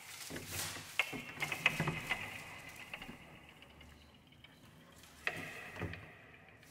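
Handmade sound objects of wooden frames and ribbons making small dry ticks and a light rustle. The ticks come in clusters through the first few seconds, then fade, with another short flurry about five seconds in.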